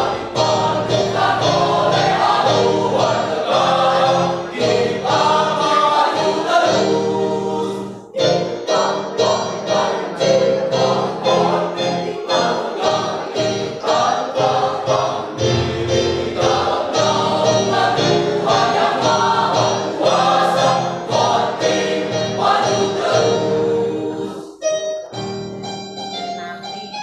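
Mixed choir of men and women singing a march in close harmony, with a short break about eight seconds in. Near the end the voices stop and keyboard notes carry on.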